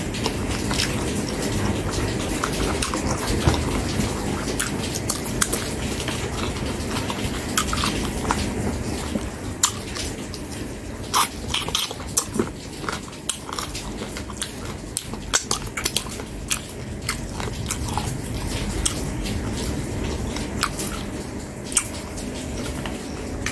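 A person chewing food, with mouth smacks and many short sharp clicks scattered throughout.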